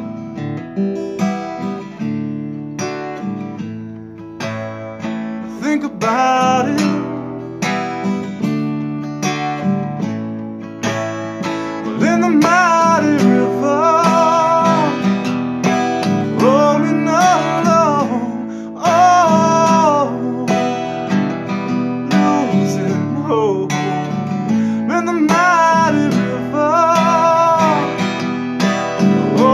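Seagull acoustic guitar strummed with a Hohner harmonica in a neck rack playing the melody over it. The guitar is heard alone at first; the harmonica comes in about six seconds in, with bent, wavering notes.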